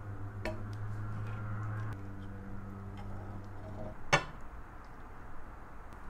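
A few light ticks and one sharp clink of kitchenware about four seconds in, over a steady low hum that stops just before the clink.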